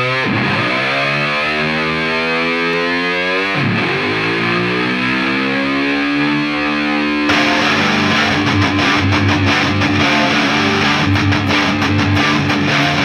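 Background rock music led by a distorted electric guitar, its notes sliding in pitch early on; about seven seconds in the music becomes fuller and busier.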